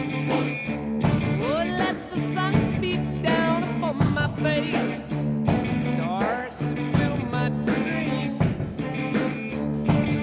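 Rock music with a steady beat, electric guitar and a gliding lead line like singing or guitar bends.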